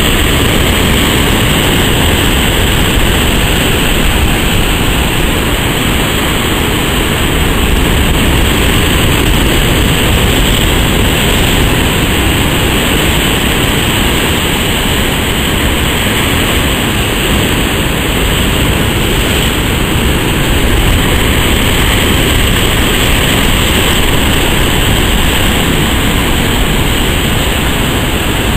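Heavy storm swell breaking and surging over a rock wall: a loud, steady rush of churning whitewater.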